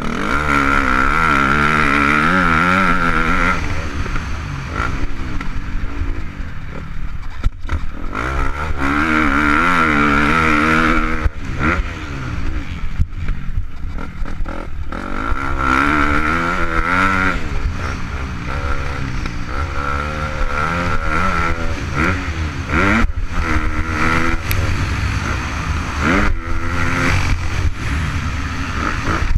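KTM 250 SX-F single-cylinder four-stroke motocross bike being ridden hard, its engine revving up and dropping back again and again as it accelerates along straights and backs off for corners, in surges a few seconds long.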